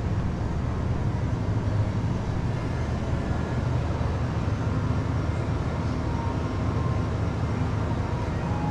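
Steady low rumbling background noise with a constant low hum.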